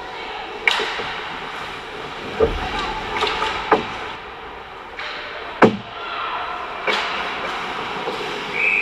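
Ice hockey play right at the goal: several sharp clacks of sticks and puck over a steady wash of rink noise, then a referee's whistle blows, one steady tone starting near the end.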